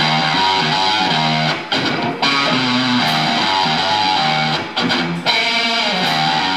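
Amplified electric guitar playing a blues-rock riff live. The riff breaks off briefly twice in quick succession about two seconds in, and again about five seconds in.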